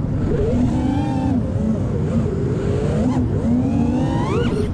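FPV racing quadcopter's brushless motors whining, the pitch rising and falling as the throttle changes, with a sharp rising whine near the end as it punches out.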